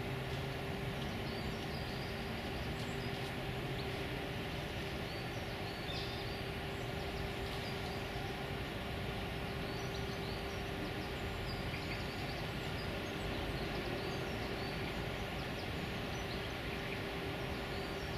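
Steady outdoor background of distant traffic rumble with a constant low hum, and short high bird chirps here and there.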